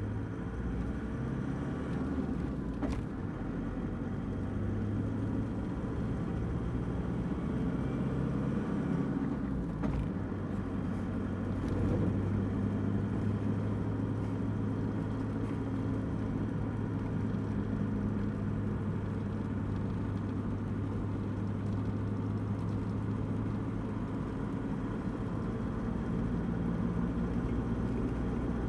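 A car driving at steady speed, heard from inside the cabin: even road and engine noise with a low drone, and a faint knock about three seconds in and again about ten seconds in.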